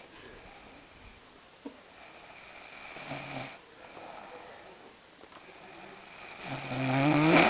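A man snoring in his sleep: a breathy snore about three seconds in, quiet breathing after it, and a louder snore building near the end.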